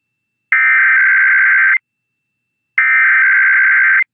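Emergency Alert System SAME header: the second and third of three digital data bursts, each a steady buzzing two-tone chirr about a second and a quarter long, a second apart. They open a Required Weekly Test alert.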